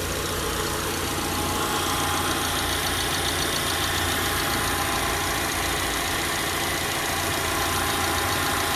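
2011 Subaru Outback's 2.5-litre flat-four engine idling steadily, heard up close in the open engine bay. It has just been refilled with AMSOIL Signature Series 5W-30 synthetic oil after an engine flush.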